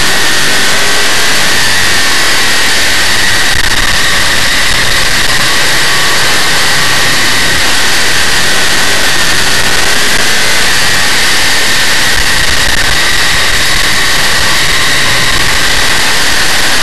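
Big-block Chevrolet V8 of a dirt modified race car running hard at racing speed, heard onboard. It is loud and steady, a dense rushing engine noise with a constant high whine over it.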